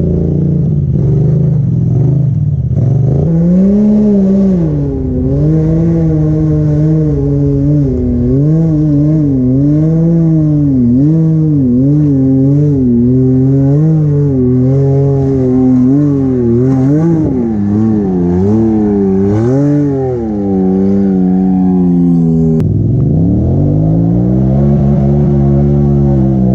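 Sport side-by-side UTV engine revving up and down over and over as it claws up a steep, loose dirt hill, the throttle worked on and off. About 22 seconds in the pitch drops suddenly and the engine settles into a steadier, even note.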